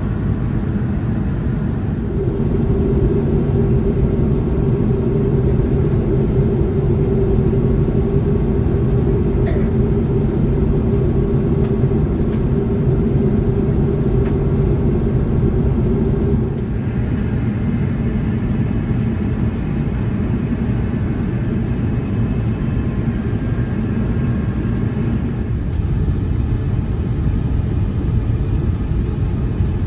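Airliner cabin noise at a window seat beside the wing: the steady rumble of an Airbus A350-900's Rolls-Royce Trent XWB engines and rushing air, with a steady low hum. About halfway through it turns slightly quieter and the hum changes pitch.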